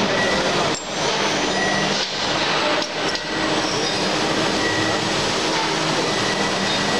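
Steady, dense machine noise from a CNC machine and its servo autoloader at work, with a few brief dips in level in the first few seconds.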